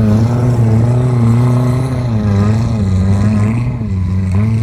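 Off-road vehicle engine running hard under load, a loud steady drone whose pitch wavers slightly up and down.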